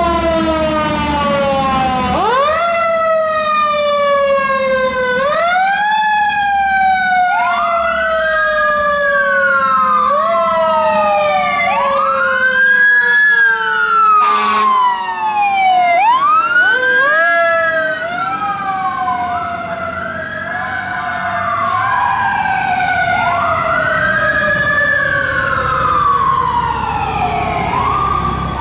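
Fire truck siren sounding as a tower ladder responds, wound up again and again: each time the pitch climbs quickly and then falls away slowly, with a low engine rumble underneath. Two short bursts of noise break in, about halfway through and again later.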